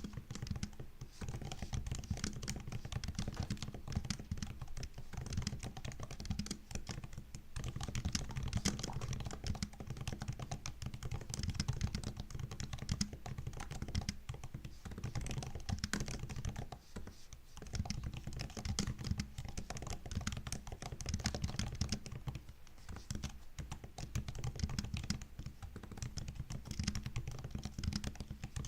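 Continuous fast typing on a MacBook laptop keyboard: a dense run of quick key clicks, with a brief lull about seventeen seconds in.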